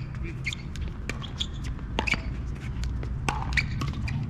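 Pickleball rally: several sharp pops of paddles hitting the plastic ball, with quicker, lighter clicks and shoe scuffs on the hard court in between. A steady low rumble runs underneath.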